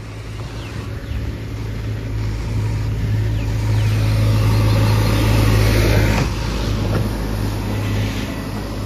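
Motor scooter engine running steadily while riding through a waterlogged road, with a rushing hiss of spray and wind that swells midway.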